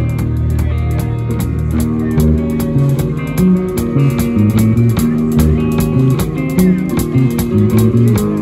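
Live rock band playing an instrumental passage: electric guitar and electric bass over a drum kit, the bass line moving through changing low notes under a steady beat.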